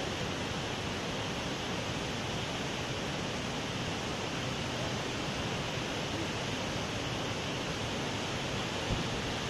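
Muddy floodwater rushing in a torrent over the rocks of a waterfall, a steady unbroken rush of water. The river is in flash flood after a landslide upstream.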